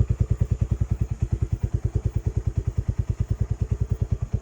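Dinamo Renegada 250cc motorcycle idling through its modified exhaust, with a pipe on each side: a steady, even pulse of about nine beats a second.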